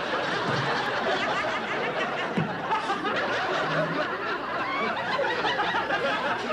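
Several people laughing heartily and without a break, men's laughter to the fore.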